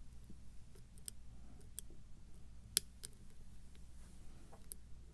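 Faint, irregular metallic clicks and ticks of a lock pick and tension wrench working the pin stacks of a pin tumbler challenge lock, with the wrench turning clockwise; one sharper click about two and a half seconds in.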